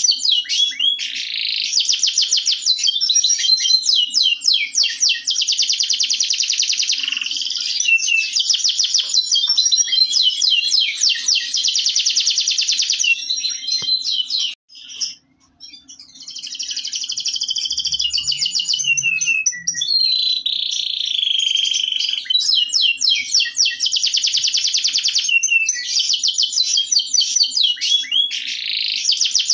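Local Indonesian canary (kenari lokal) singing a long, near-continuous song of rapid trills and rolls, with a short break about halfway through.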